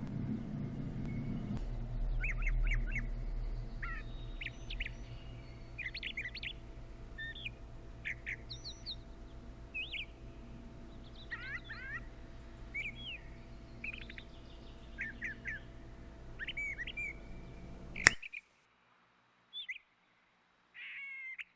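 Small birds chirping and singing with short calls and trills over a low steady hum. The sound cuts off abruptly with a click about 18 seconds in, leaving near silence with one or two faint chirps.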